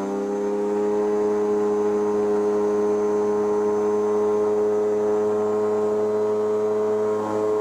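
Ultralight's Rotax 582 two-stroke engine at full takeoff power. Its pitch climbs briefly at the start, then holds steady through the takeoff roll.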